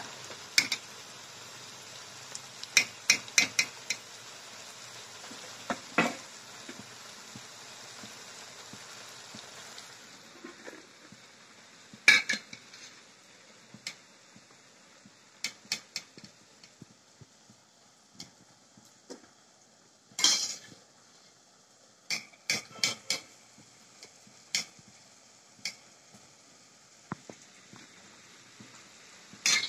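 Metal spoon stirring, scraping and clinking in a cooking pan over a steady frying sizzle. The sizzle stops about ten seconds in, leaving scattered clinks of the spoon against the pan.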